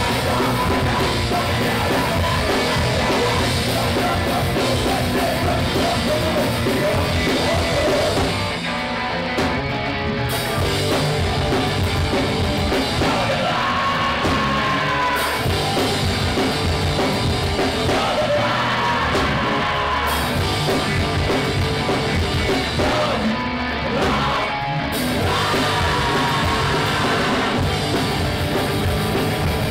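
A live rock band playing loud electric guitars and drum kit, with a singer yelling the vocals into the microphone. The band drops back briefly twice, about nine and twenty-four seconds in.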